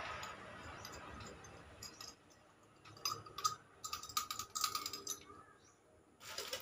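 Small metal clicks and clinks with a faint ringing as a screwdriver turns a screw in the metal knob of a food warmer's glass lid; the clicks come in quick clusters from about halfway through.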